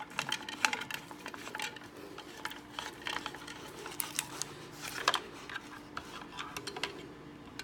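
Scattered light metal clicks and clinks, fairly quiet: bolts and hand tools being handled while the base of a pneumatic flooring stapler is bolted back on.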